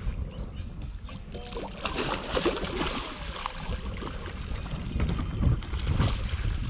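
Water sloshing and gurgling around a small boat, with irregular knocks and handling noise over a steady low rumble.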